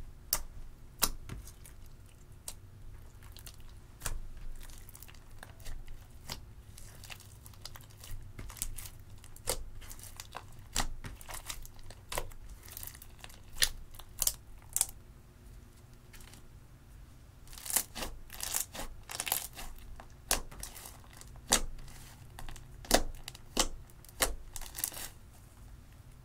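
Hands kneading and squishing clear slime mixed with crumbled pink eyeshadow, giving sticky crackling and popping clicks at an uneven pace that come thicker in the second half.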